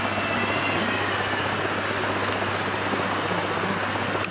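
Shallow river water rushing over rocks: a steady, even hiss.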